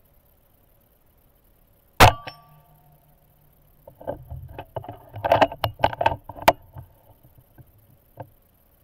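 A PCP air rifle, an Air Venturi Avenge-X, fires a single pellet about two seconds in: one sharp crack with a brief ring after it. About a second and a half later comes a few seconds of clicking and rattling.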